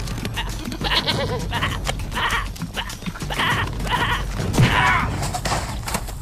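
Cartoon goat bleating in about five short calls, over background music.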